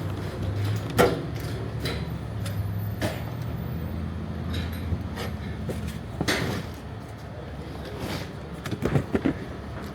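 A steady low vehicle engine hum, with scattered sharp knocks and clanks over it and a short cluster of knocks near the end.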